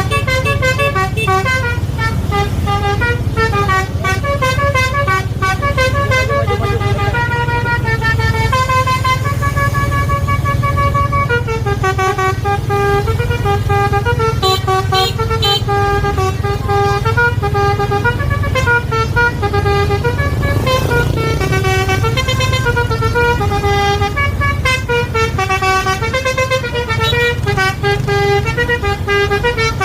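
A bus's basuri 'telolet' multi-tone horn playing a melody, its notes stepping up and down without a break, over the steady low rumble of the bus engine.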